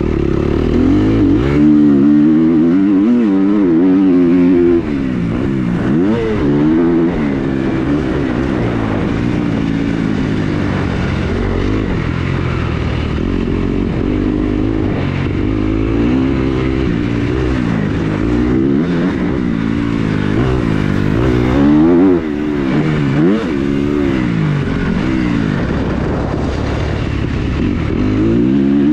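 Dirt bike engine being ridden hard, its pitch climbing and falling over and over as the throttle opens and closes through the gears, with the throttle snapped shut twice.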